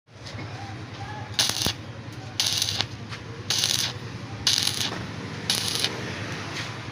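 Electric arc welding on a pipe joint: short bursts of arc crackle, each about a third of a second, come roughly once a second over a steady low hum.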